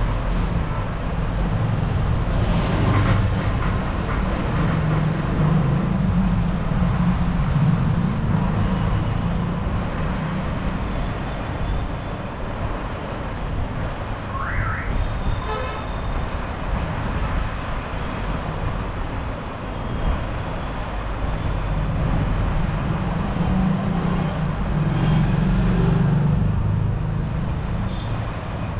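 Steady rumble of road traffic going by, swelling twice as heavier vehicles pass.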